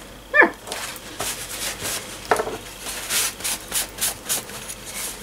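Fingertips rubbing softened transfer paper off a painted coaster, in a run of short rubbing strokes that comes quicker in the second half, to clear the paper after a reverse image transfer. A short squeak sounds about half a second in and is the loudest moment.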